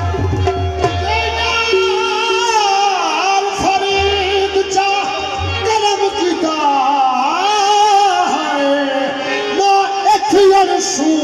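Qawwali music: harmoniums play a melody under a man's drawn-out wordless vocal runs, with deep hand-drum strokes near the start and again about four seconds in.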